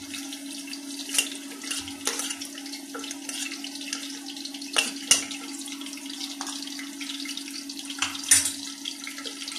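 Chopped onions sizzling in hot oil in an aluminium pressure cooker, with a steady hiss and a few sharp clinks of a steel spoon against the plate and cooker rim as the onions are scraped in. A steady low hum runs underneath.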